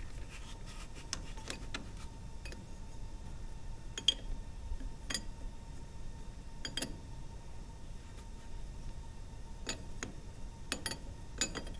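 Irregular sharp metallic clicks and taps of a steel combination wrench on the hydraulic fittings of a power steering pump, spaced a second or more apart, some in quick pairs.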